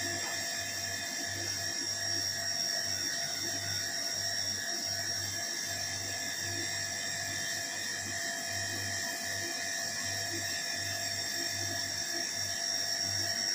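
A steady high-pitched machine whine with a low hum underneath that keeps cutting in and out.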